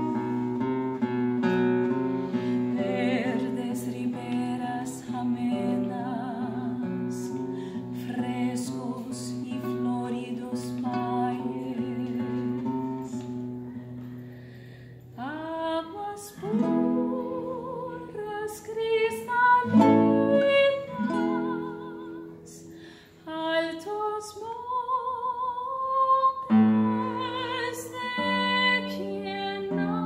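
Classical (nylon-string) guitar playing alone for about the first half, then a woman's voice comes in, singing with a wide vibrato over the guitar accompaniment.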